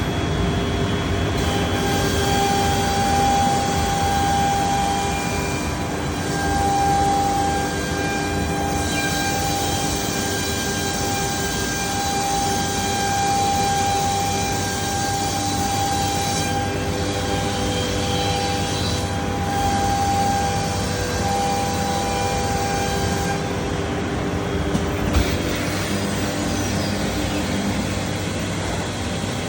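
Biesse Rover K CNC router milling solid wood: a steady machine hiss with a high spindle whine whose tones come and go as the cut changes, and a single short knock near the end.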